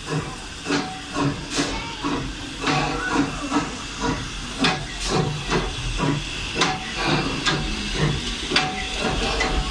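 Amusement-park train running into its station: a steady hiss with irregular clicks and clatter throughout.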